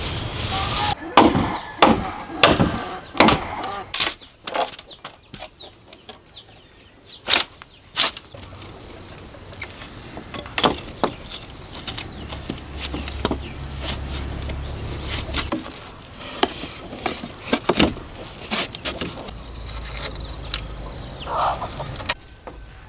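Bamboo poles and strips knocking and clacking as they are handled and laid down, in irregular sharp knocks, loudest and most frequent in the first few seconds.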